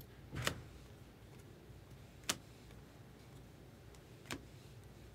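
Stiff chrome trading cards clicking as they are flipped through by hand: three short, sharp clicks about two seconds apart, over a faint low hum.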